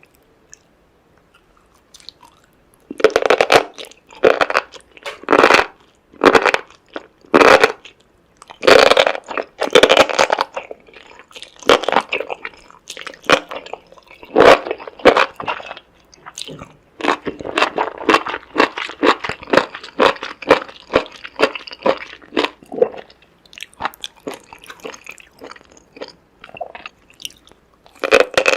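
A person chewing and crunching seafood, a string of loud crunchy bites and chews that begins a few seconds in.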